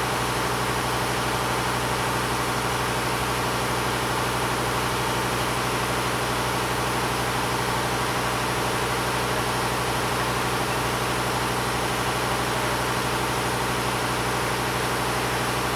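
Diesel locomotive engine idling steadily, a constant low hum that does not change in pitch or level.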